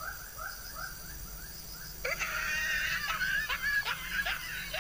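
Animal calls: a string of short rising chirps, about three a second, joined about two seconds in by a denser chorus of many overlapping rising calls.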